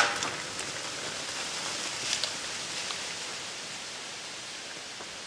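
A shot cracks at the very start and dies away quickly. A steady hiss follows, with faint rustling about two seconds in.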